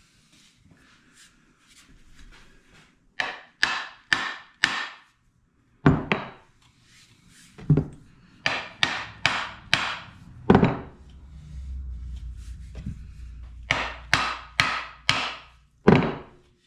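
A steel hammer striking the end of a wooden axe handle, driving the axe head down onto it to seat it. Sharp knocks come in bursts of several blows, about two a second, with a pause between bursts.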